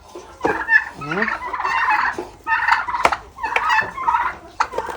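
Domestic turkeys calling and gobbling repeatedly in their pen while they are fed, with a few sharp clicks among the calls.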